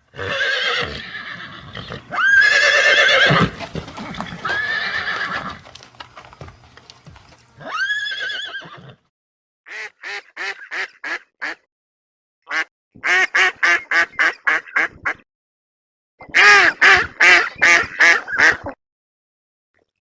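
Horses whinnying: several long, high neighs, followed by three runs of short, rapid calls with brief silences between them.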